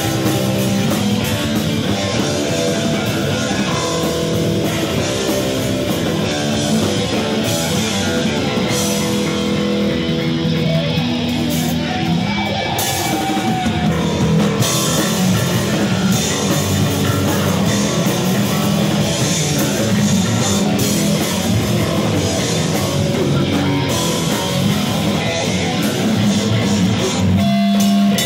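Thrash metal band playing live: distorted electric guitars over a drum kit, loud and continuous.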